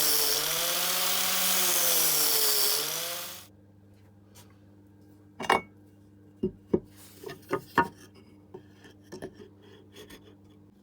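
A workshop power tool running with its pitch wavering under load, winding down and stopping about three seconds in. Then come light knocks and clicks of tools and parts being handled over a faint steady hum.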